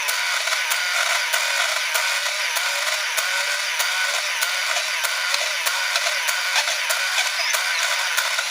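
Canon AF35M compact film camera's built-in motor rewinding the film into its cassette: a steady electric whir with light clicks running throughout.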